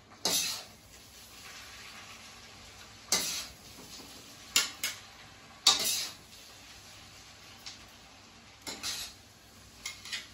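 Metal ladle and a second utensil scraping and clanking against a kadhai (wok) as chowmein noodles are tossed to mix in the spices: about eight irregular scrapes and knocks. Between them comes a faint sizzle from the low flame.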